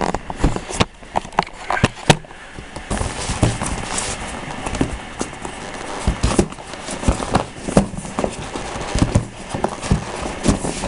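Cardboard figure packaging being handled close to the microphone: rubbing and scraping with many irregular taps and knocks.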